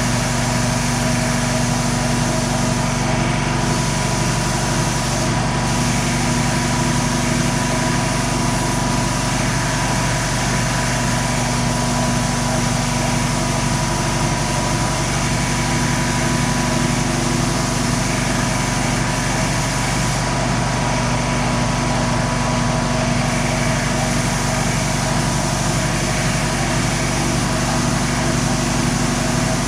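Air compressor running steadily, a constant motor hum with a steady hiss above it, as it supplies air for spraying clear coat.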